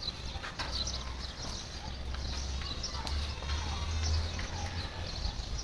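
Small birds chirping repeatedly over a low steady hum that fades near the end.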